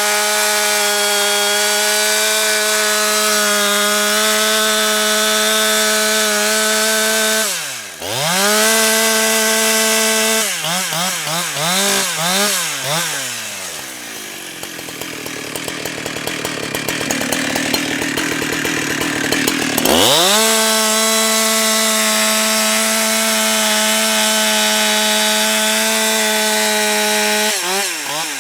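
Husqvarna 365 two-stroke chainsaw held at high revs. The throttle drops off sharply around eight seconds in, the revs swing up and down for a few seconds, and then the engine pulls down lower and rougher for about six seconds as the chain works through wood. It climbs back to steady high revs and falls away near the end as the throttle is released.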